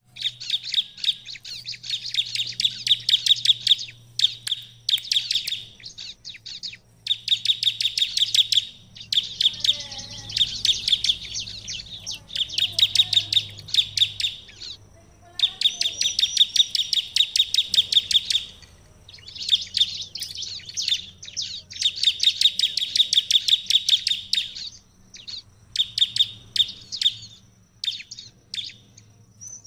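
Ciblek (bar-winged prinia) singing hard: long runs of rapid, sharp, high chirping notes in bursts of a few seconds, broken by brief pauses.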